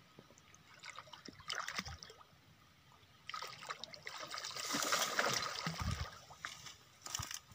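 A hooked fish splashing and thrashing at the water's surface close to the bank, in irregular bursts: a short one early and a longer, louder one from about three to six and a half seconds in.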